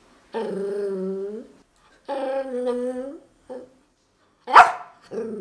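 A chihuahua making long, drawn-out whining moans, about a second each, three times with a short one after. About four and a half seconds in comes a single sharp bark, the loudest sound, then the moaning starts again.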